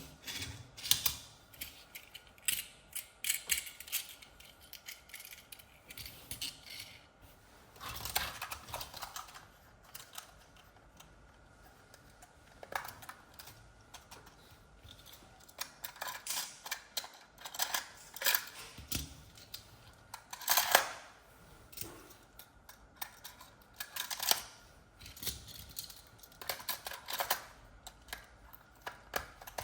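Plastic toys and packaging being handled: irregular clicks, taps and short bursts of rustling, spaced unevenly.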